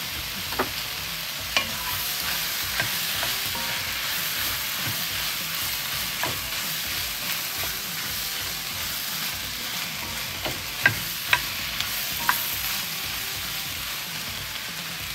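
Diced peppers, carrots and onions with tomato paste sizzling in a pot while a wooden spoon stirs them. The spoon knocks sharply against the pot a few times, loudest twice in quick succession near the end.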